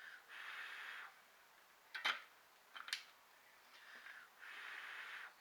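Two sharp clicks about a second apart as soldering tools and the freshly soldered Deans connector are handled at the bench, between two short, soft hisses.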